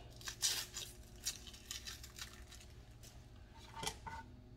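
Dry outer skin being peeled by hand off a halved onion: irregular papery crackles and rustles, louder about half a second in and again near the end.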